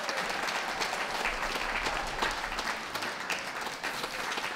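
Audience applauding, many hands clapping at once, at an even level.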